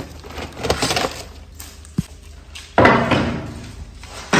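Cardboard packaging and plastic switch and socket boxes being handled in a pile: rustling, light knocks and a sharp tap, then two loud sudden clattering crashes that fade away, about three seconds in and again at the end.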